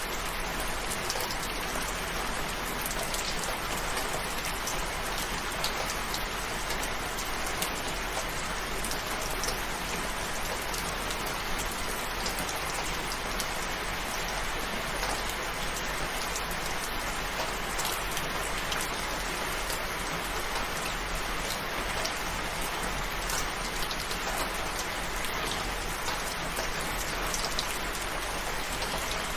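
Steady rain falling, a dense patter of drops over an even hiss.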